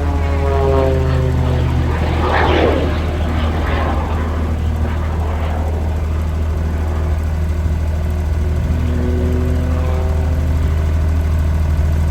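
Muscle Pitts hybrid aerobatic biplane's propeller engine droning during its display. Its note falls in pitch over the first seconds, swells into a louder rush about two and a half seconds in, and rises again near the end, over a steady low rumble.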